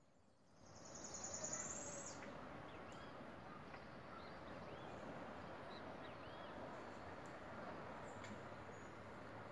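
Faint outdoor background noise with high animal calls: one long, high, slightly rising whistle near the start, then several short arched chirps over the next few seconds.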